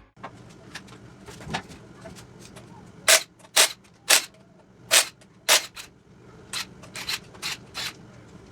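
A series of sharp knocks, likely metal striking metal: five loud ones about half a second apart a few seconds in, then several lighter ones.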